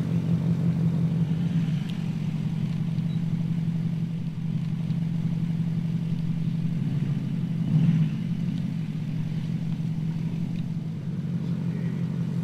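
Porsche Cayenne S's 3.6-litre twin-turbo V6 running steadily at low revs as the SUV crawls over logs, with a brief rise in the engine note about eight seconds in.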